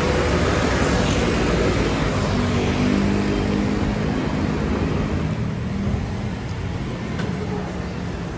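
Street traffic noise: a steady rumble of passing vehicles, with an engine's hum going by about two seconds in and fading a few seconds later.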